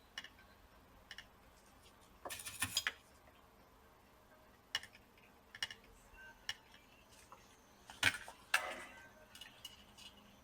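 Faint, scattered clicks and light metallic taps of a soldering iron and small hand tools against a laptop motherboard and chip while the chip's pins are soldered by hand, with two short clusters of rattly taps, about two and a half seconds in and again near the end.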